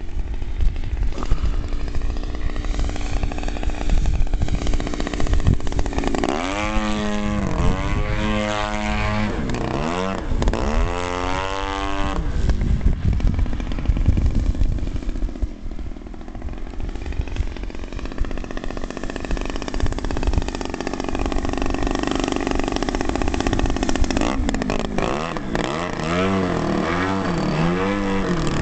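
O.S. GT55 single-cylinder two-stroke gasoline engine of a Slick 540 RC aerobatic plane in flight, its pitch repeatedly falling and rising as the plane manoeuvres and the throttle changes.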